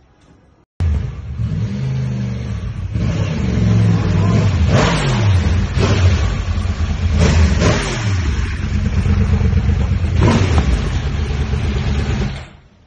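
Motorcycle engine being revved hard several times, its pitch climbing and dropping back between blips. It starts abruptly about a second in and cuts off near the end.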